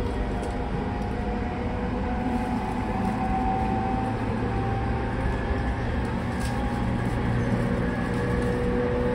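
JR 209-500 series electric train running, heard inside a motor car: a steady rumble of wheels on rail with traction-motor whine tones that drift slowly in pitch.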